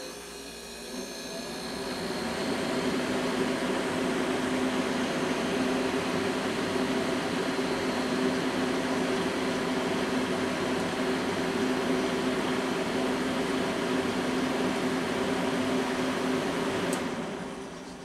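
1994 Oasis D-30L dehumidifier switched on with a click, its fan spinning up over a couple of seconds to a steady rush of air with a low, even hum. About a second before the end it is switched off with another click and starts to wind down.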